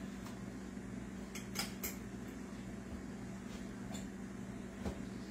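Steady low mechanical hum of a running kitchen appliance or fan, with a few faint light clicks about a second and a half in.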